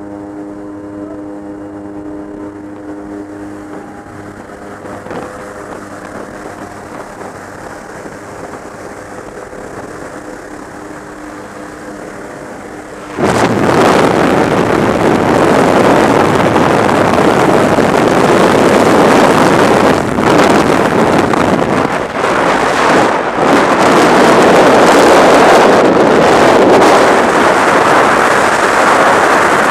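Steady engine drone of the jump plane from inside the cabin; about 13 seconds in it gives way suddenly to loud, rushing freefall wind noise on the microphone as the skydiver leaves the aircraft.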